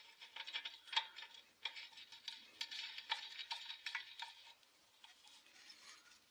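Light metallic clicks, taps and scrapes of chainsaw engine parts being handled by hand as the barrel and piston are worked on, several a second, stopping about four and a half seconds in.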